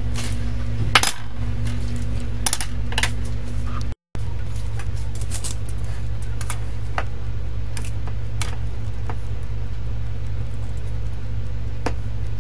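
Sharp metallic clinks of a plate and metal tongs knocking against an aluminium pressure cooker pot, scattered and irregular, the loudest about a second in, over a steady low hum.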